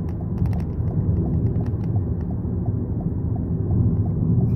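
Car cabin noise while driving slowly, a steady low road and engine rumble, with the turn-signal indicator ticking evenly, about three ticks a second. A few sharp clicks sound about half a second in.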